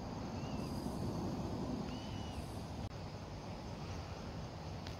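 Quiet woodland ambience: a steady low rumble on the microphone, with two faint, short bird chirps about half a second and two seconds in.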